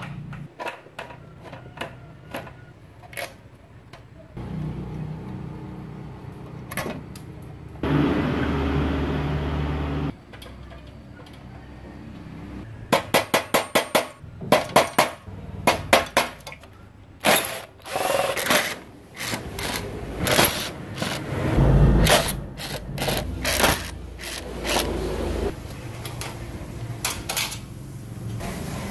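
Metal parts and hand tools clinking, knocking and rattling as a generator's cover plates and terminal wiring are taken apart. A cordless drill runs for about two seconds, and a quick run of clicks comes about halfway through.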